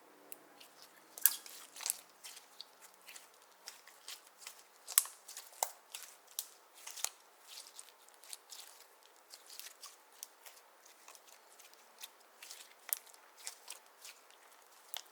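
Clear slime with eyeshadow mixed in, being worked by hand and giving off irregular sticky clicks and small pops, several a second, some much sharper than others.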